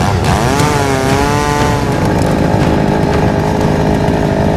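Husqvarna two-stroke chainsaw cutting into a cottonwood log, its engine speed dipping under load just after the start and climbing back within about a second, then running steady at full throttle. The owner believes the log is frozen and waterlogged, which is why it is fighting the saw.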